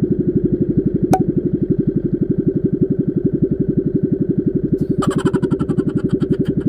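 Small engine running steadily at a fast, even chug of about a dozen beats a second. A sharp click about a second in, and a brief fast rattle near the end.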